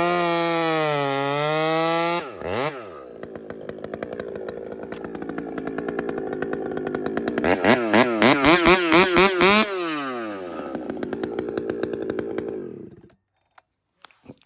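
Two-stroke chainsaw fitted with an aftermarket performance muffler, running at full throttle in a cut, its pitch sagging under load. About two seconds in it drops away and runs low, then is revved in a run of quick rising and falling blips, about three a second, before winding down and fading out near the end.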